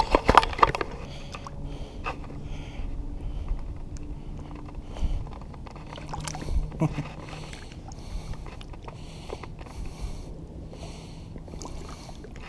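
Water sloshing against the side tube of an inflatable kayak as a hand holds a small bass in the water to release it. Handling knocks and bumps on the boat are loudest in the first second, with a few more later.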